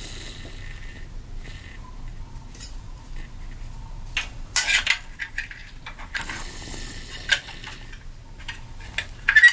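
Light metallic clinks and scrapes as the crankshaft timing sprocket is worked onto the crank nose of a 4G63 engine. The loudest clatter comes about halfway through and again near the end.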